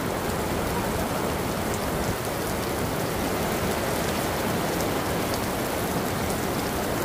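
Heavy downpour: a steady hiss of rain falling on surfaces, with faint ticks of single drops.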